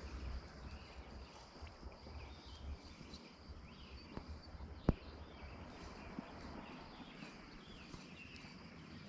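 Faint outdoor ambience with small chirps, likely birds, running throughout, a low rumble during the first few seconds, and one sharp click about five seconds in.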